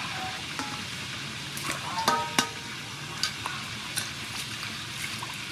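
Hands swishing lettuce and mint leaves in a stainless steel bowl of water: steady splashing and sloshing, with small clicks and two sharp knocks on the metal bowl about two seconds in that ring briefly.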